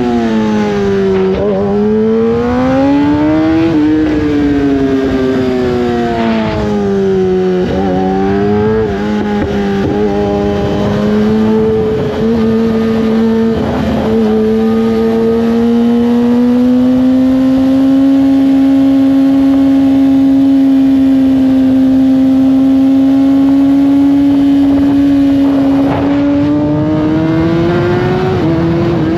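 Inline-four superbike engine running hard under way. Its note falls and rises several times with the throttle, holds steady for a long stretch after about sixteen seconds, then climbs again near the end.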